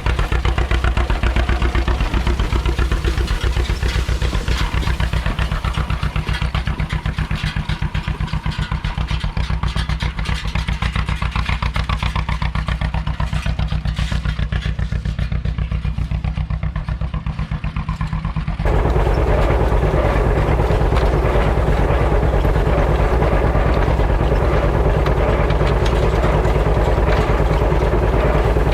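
Tractor engine running steadily with an even firing rhythm. About two-thirds of the way through the sound switches abruptly and becomes louder and fuller.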